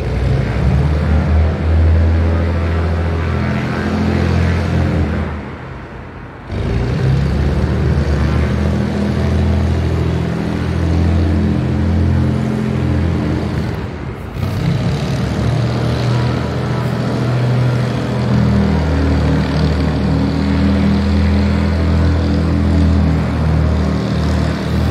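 Cessna 310Q's twin six-cylinder piston engines running steadily with the propellers turning, a low, even drone that drops away briefly twice.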